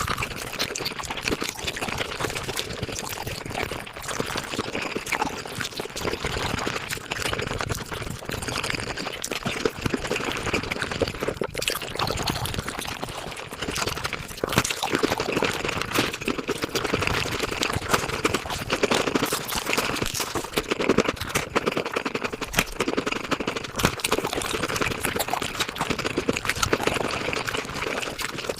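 Mukbang eating sounds sped up five times: a dense, unbroken patter of chewing, crunching and slurping.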